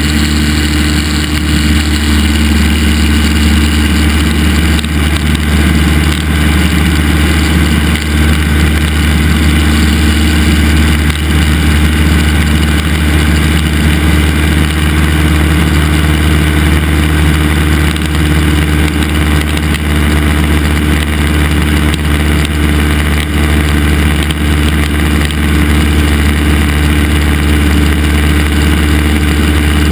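Cessna 172's piston engine and propeller running steadily, a constant drone heard inside the small cabin.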